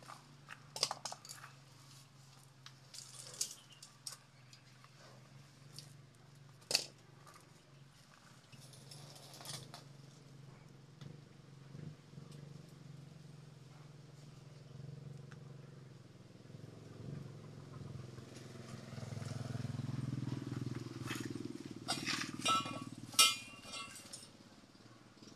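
Scattered metal clinks, taps and knocks as a long rod is worked down into a cast-iron hand pump, with a tight run of clinks near the end. Under them is a low steady hum that swells for a few seconds past the middle.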